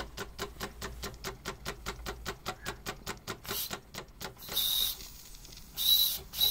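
Wilesco D6 toy steam engine's single cylinder ticking over in an even beat of about six strokes a second, which dies away; then a few short, shrill blasts of its boiler steam whistle, the loudest sounds.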